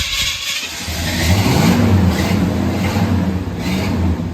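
Car engine running through a new exhaust with a single Flowmaster muffler: it catches about a second in after cranking, then settles into a deep, steady rumble with a couple of brief revs.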